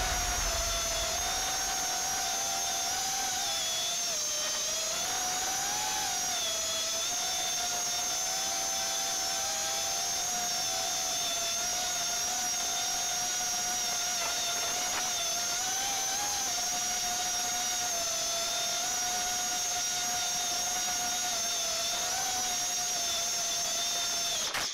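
Mini FPV quadcopter's brushless motors (HGLRC Flame 1407) spinning 4-inch props, heard from the onboard camera: a steady high whine whose pitch wavers up and down with the throttle.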